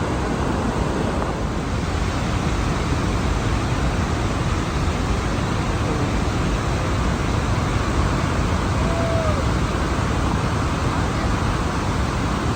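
Steady roar of Victoria Falls, a continuous rush of falling water.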